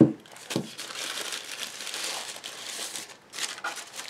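Plastic packaging crinkling and rustling as it is pulled off by hand, with two soft thumps in the first second.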